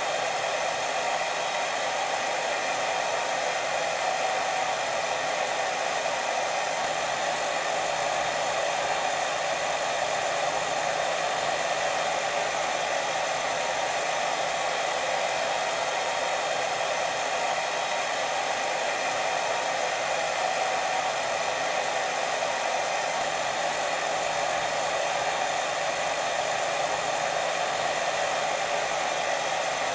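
Steady white noise for sleep: an even, unbroken hiss with no pauses or rhythm.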